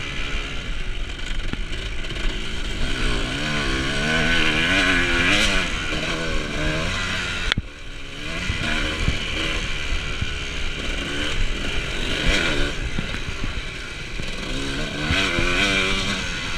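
Off-road dirt bike engine riding a trail, its pitch rising and falling over and over as the throttle is opened and shut, with a brief break about halfway through.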